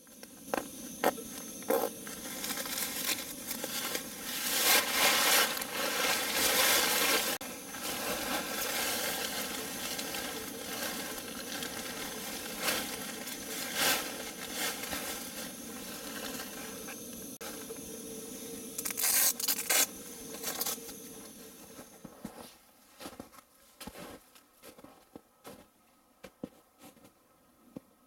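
Nylon stuff sack and sleeping bag rustling and scraping as they are unpacked and spread out, with several louder bursts of handling noise; it dies down to a few faint clicks near the end.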